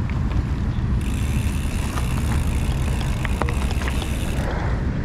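Steady rumble of wind on the microphone and tyre noise from a bicycle being ridden along a paved path, with a few light clicks and rattles in the middle.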